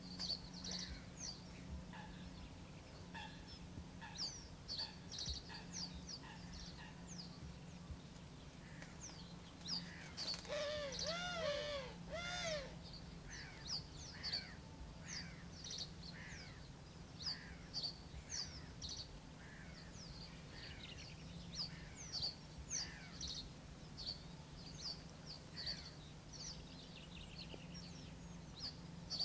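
Small birds chirping with short, high calls throughout, and a run of louder, harsher calls about ten to twelve seconds in, over a low steady hum.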